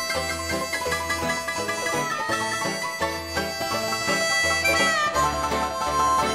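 Background music: an acoustic string-band tune with plucked notes and a long held melody line over a pulsing bass. About five seconds in, the melody slides down to a new note.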